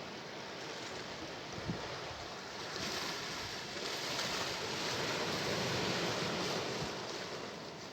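Sea waves washing on the shore, a steady rush that swells as a wave breaks about three seconds in and eases off near the end. A brief click sounds about two seconds in.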